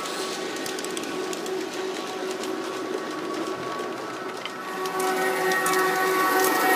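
G-scale model trains running on outdoor track: the wheels click over the rail joints, under a steady whine from the LGB SBB Cargo BR 481 electric locomotive's Dietz sound module. The whine grows louder from about five seconds in as the locomotive comes close.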